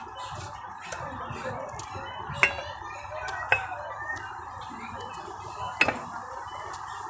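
Metal cookware pans clinking a few times as they are handled on a shop shelf: sharp clinks spaced a second or more apart, over steady background noise.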